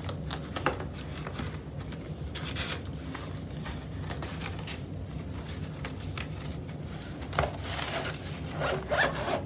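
Paper banknotes and envelopes rustling and rubbing as bills are tucked into a cash binder's envelope, with brief crinkles every second or so. A couple of louder rustles come near the end, as the binder is closed.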